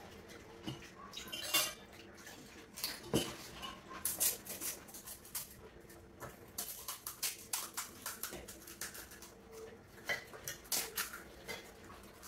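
Plates, bowls and spoons clinking and clattering in quick irregular clusters as pani puri is filled with potato and pani and eaten at speed.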